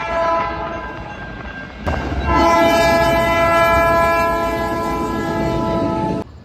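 Train horns sounding long held chords: one horn, then a splice about two seconds in to a louder horn chord, which cuts off abruptly near the end.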